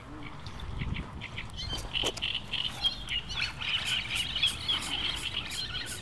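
Birds chattering in a dense run of short, quick calls that start about two seconds in, over the low rumble of wind on the microphone.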